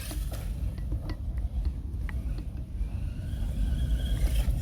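FTX Outlaw electric RC truck driving after hitting a ramp. Scattered light clicks and knocks come from the truck as it lands and rolls, and a faint rising motor whine starts near the end, over a steady low rumble.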